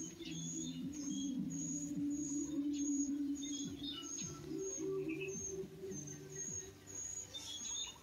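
Birds chirping, with a high note repeated evenly about twice a second and scattered short chirps, over low steady background music that shifts pitch in steps.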